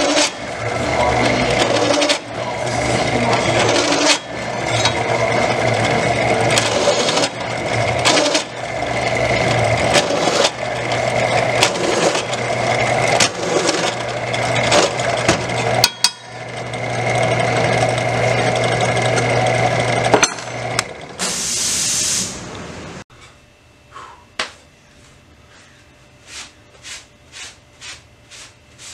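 Benchtop drill press running and drilling holes through a steel knife handle: a steady motor hum with cutting noise that rises and falls with the feed, stopping briefly several times. Near the end comes a short hiss, then it goes quieter with a run of light, evenly spaced ticks.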